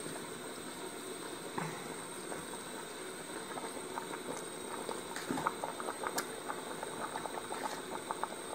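Water and vegetables boiling in a cast iron potjie pot: a steady bubbling hiss with small pops, which come more often in the second half.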